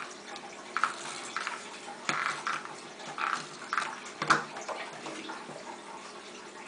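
Tape-runner adhesive dispenser drawn across paper in a run of short strokes, mixed with paper being handled and pressed down. There is a sharp click a little past four seconds in, then it goes quieter.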